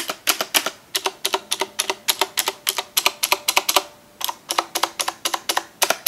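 Corsair K70 mechanical keyboard with Cherry MX Blue switches, its keys pressed again and again in quick runs of clicks, with a short pause a little before four seconds in. Its Cherry-style stabilized keys are very loud but do not rattle.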